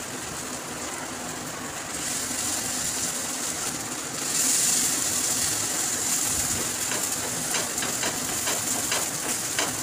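Uttapams frying in ghee on a hot nonstick tawa, sizzling with a steady hiss that swells about two seconds in and again at about four seconds. Light taps of a metal spatula on the pan come in the second half.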